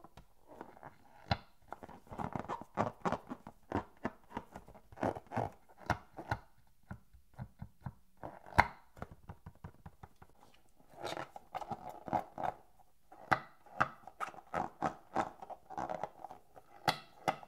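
Hands handling and squeezing inflated latex balloons: an irregular run of rubbery squeaks and rubbing, with sharp taps and clicks.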